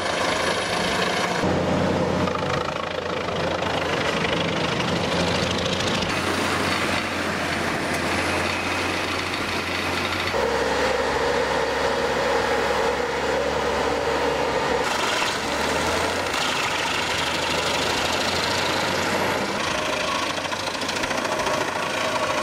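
Large diesel-powered drum wood grinder running and chipping wood, a steady heavy machine noise whose tone changes abruptly several times.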